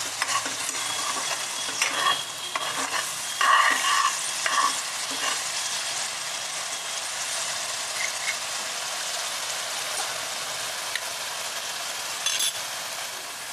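Onion, tomato and coriander paste sizzling in oil in a metal kadhai. In the first few seconds a metal ladle scrapes and clinks against the pan as it is stirred, then the frying goes on as a steady sizzle. The paste is nearly fried through, with oil separating at the sides.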